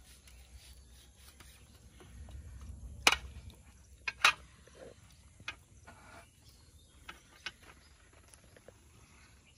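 Quiet eating sounds from people eating grilled vegetables off a metal tray: a few sharp clicks and smacks, the loudest about three seconds in and two more just after four seconds, over a low background with a brief low rumble.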